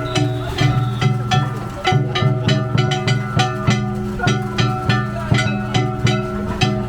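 Danjiri hayashi festival music: drums and plucked strings played to a steady beat of about three strokes a second over a held low tone.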